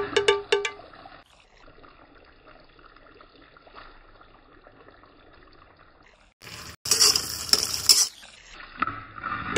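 Wet mint paste cooking in oil in an aluminium kadai: a faint sizzle, then a loud wet sizzling and spattering for about a second and a half, starting about six and a half seconds in.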